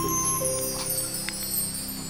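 Gentle background music: held notes that step from one pitch to the next, a slow melody.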